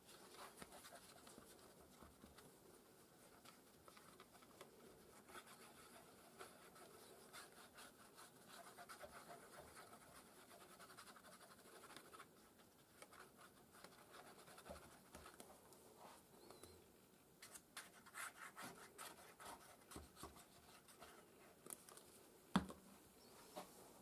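Faint rubbing and scratching of a hand spreading craft glue over a sheet of white card, with one sharp click near the end.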